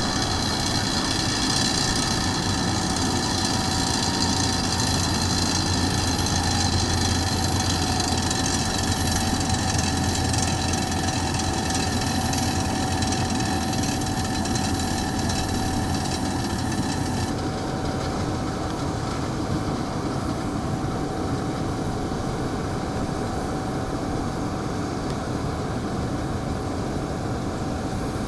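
Uganda Airlines CRJ900 regional jet running on the ground while parked: a steady whine with a low hum beneath it. The higher part of the whine drops away about 17 seconds in.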